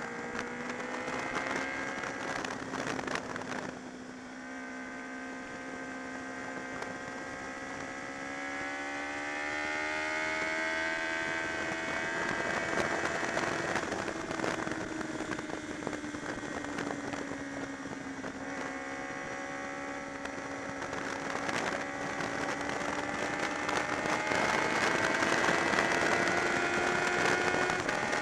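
Honda VFR motorcycle's V4 engine running at speed, its pitch rising and falling slowly as the revs change through the curves. Crackly wind buffeting on the microphone runs throughout.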